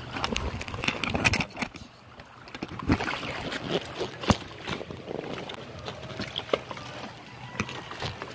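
Irregular knocks and taps in a small boat, the loudest about a second in, near three seconds and just past four seconds, over a steady low noise.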